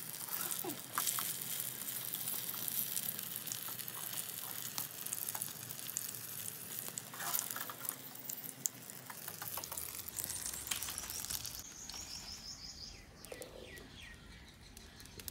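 Potato-and-onion pakoras deep-frying in hot oil in an iron karahi: a dense sizzle with scattered crackles. It dies down over the last few seconds as the last fritters are lifted out of the oil.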